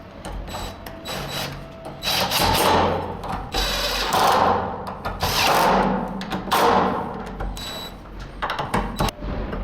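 Power drill run in about four bursts of a second or so, working on the metal blocker plate and door as the holes are re-drilled and the plate fixed, with a few sharp knocks near the end.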